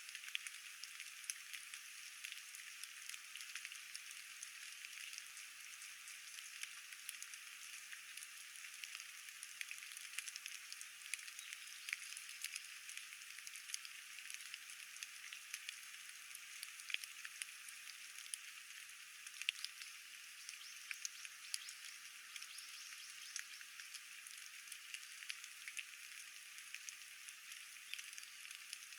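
Rain falling steadily, a continuous patter of many small drop hits.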